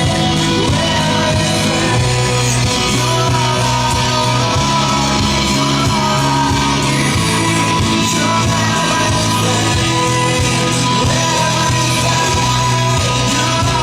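A rock song with a singer, loud and steady, over guitar and drums.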